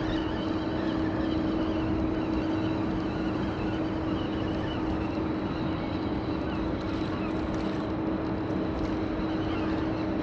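A steady mechanical hum with one constant low tone, unchanging throughout, over an even background rush.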